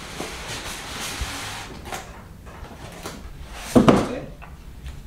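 Styrofoam packing tray sliding and scraping against the inside of a cardboard monitor box as it is pulled out, with a short louder scrape a little under four seconds in as it comes free.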